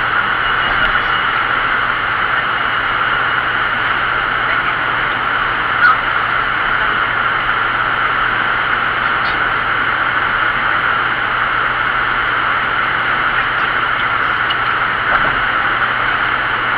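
Steady road and wind noise of a vehicle travelling at speed, an even hiss over a low steady hum, with one short click about six seconds in.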